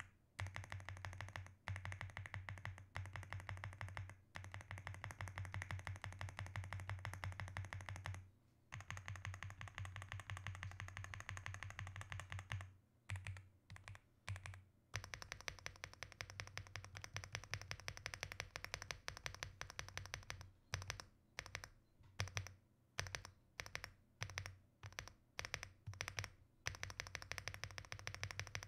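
Typing on an Aula F75 mechanical keyboard: a fast, continuous clatter of keystrokes for about the first twelve seconds, with one short pause in the middle. After that the typing comes in short bursts of keystrokes with brief pauses between them.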